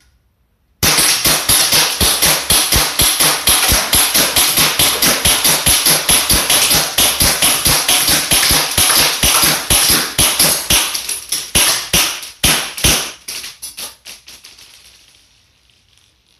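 Gas blowback airsoft pistol fired in rapid semi-automatic succession, several sharp shots a second with the slide cycling on each one. Over the last few seconds the shots grow weaker and fade out as the gas pressure drops.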